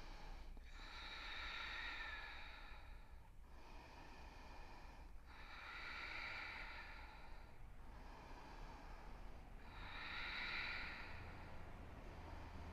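A yoga practitioner breathing slowly and audibly while holding a twisting standing pose: even, hissing breaths in and out, each lasting about two to three seconds.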